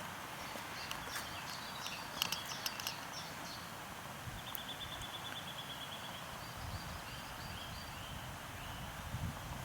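Small birds chirping and singing over a steady outdoor hiss, including a quick trill of repeated high notes partway through. A few soft footsteps come near the end.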